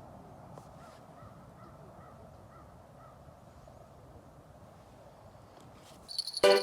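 A bird calling in a quick series of short calls, about two a second, over a steady faint outdoor hiss. Music with a beat starts near the end.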